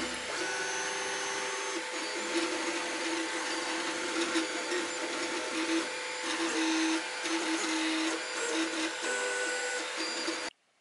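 3D printer printing: its motors whine in short stretches that shift in pitch as the print head moves, over a steady hiss. The sound cuts off suddenly near the end.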